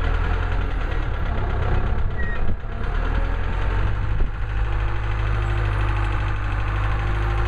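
An engine idling steadily, with a brief knock about two and a half seconds in.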